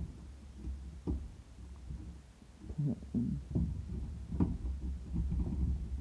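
Low rumbling handling noise on the microphone, with a few light knocks and clicks as a small flathead screwdriver works in a filing cabinet lock.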